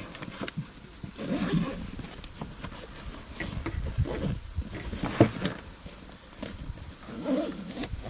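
Rustling and scattered light knocks of a nylon sling backpack and its contents being handled, over a faint steady chirring of insects.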